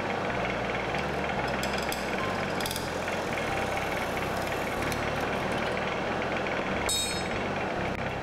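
Wood lathe running while a long hooked turning tool cuts into the inside of a spinning wooden block: a steady scraping cut over the machine's hum, with a couple of sharper scrapes.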